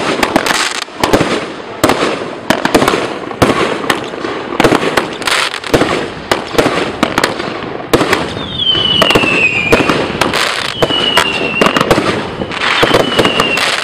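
A 1.3G consumer firework cake firing shot after shot: sharp launch thumps and breaking shells, several a second, over crackling. In the second half three falling whistles cut through, each about a second long.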